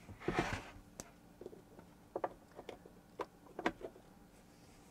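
A power cord being plugged into the back of a studio monitor: a brief scuffle of cable and plug, then a series of faint, sharp plastic clicks.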